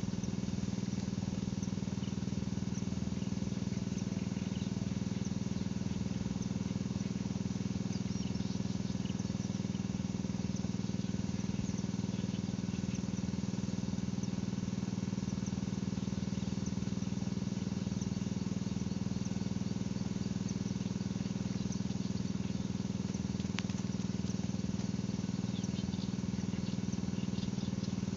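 Steady outdoor background noise with a constant low rumble, and faint, scattered high chirps.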